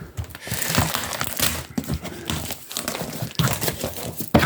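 A box of mail-order gear being opened by hand: irregular crinkling and rustling of packaging with scattered sharp clicks and knocks.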